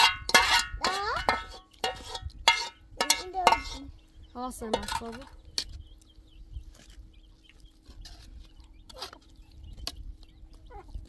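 Metal spoon clinking and scraping in a cooking pot of rice and stew, in a few short knocks spread through the second half, after a few seconds of high children's voices.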